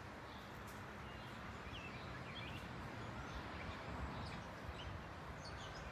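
Faint, steady rumble of a Boeing 777 airliner passing high overhead, swelling slightly midway, with small birds chirping briefly now and then.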